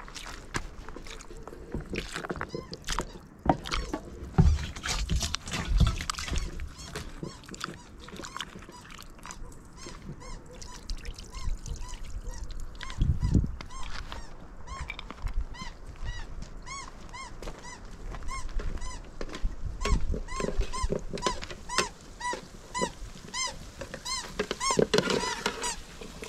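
Water pouring and splashing from a plastic jerrycan while a bowl is rinsed, with scattered knocks of the bowl on rock. Over it a bird calls again and again, short rising-and-falling calls about two a second, growing more prominent in the second half.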